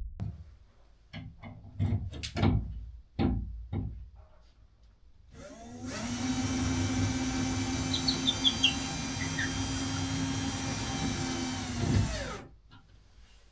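A few scattered knocks and clicks, then a small electric motor starts up, runs steadily for about seven seconds and winds down near the end.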